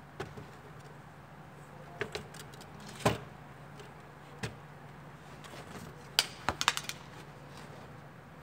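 Handling noises at a workbench: scattered clicks and knocks of a plastic in-tank fuel filter and pump assembly and hand tools being moved and set down, the loudest knock about three seconds in and a quick run of small clicks near the end. A low steady hum sits beneath.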